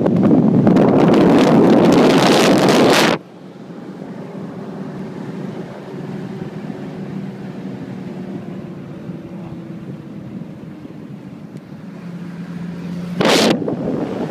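Wind buffeting the microphone of a moving off-road vehicle, cutting off abruptly about three seconds in. Then the Toyota 4x4's engine running steadily as heard inside the cabin, its hum slowly falling in pitch. The wind rushes in again for a moment near the end.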